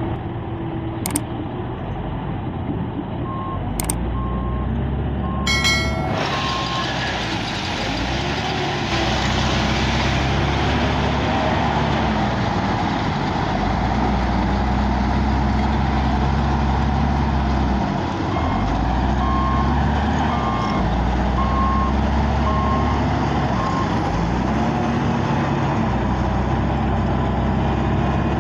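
Caterpillar 950E wheel loader's diesel engine working, its pitch rising and falling again and again as it revs through loading and manoeuvring. A reversing alarm beeps at an even rate twice, a few seconds in and again around the middle.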